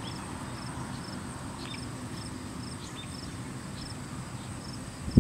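Crickets chirping in short, evenly spaced pulses every two-thirds of a second or so, over a steady low rumble. A sudden louder sound breaks in at the very end.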